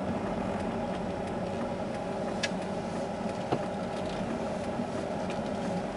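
Car heard from inside the cabin while driving slowly: a steady engine and road hum, with two short clicks about two and a half and three and a half seconds in.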